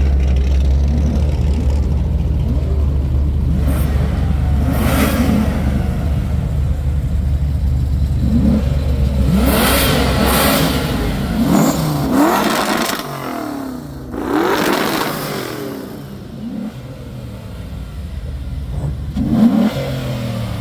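Several Fox-body Mustangs' V8 engines revving and accelerating in turn, their pitch rising and falling several times, over a steady low engine drone that drops away about two-thirds of the way through.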